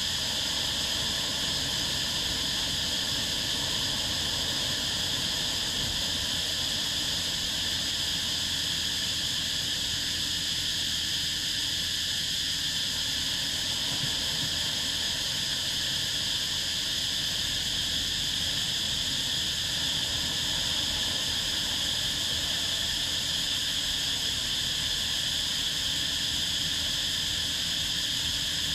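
A steady, high-pitched chorus of insects that runs on without a break, over a low rush of small waves breaking on the beach.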